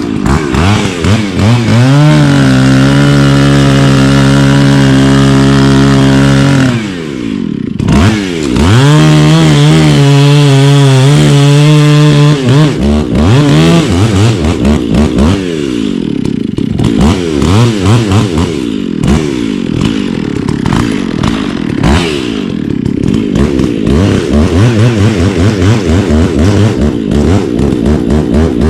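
Gasoline chainsaw cutting down a tree, run at full throttle, dropping off briefly about seven seconds in, then revving up again and rising and falling over and over as it cuts.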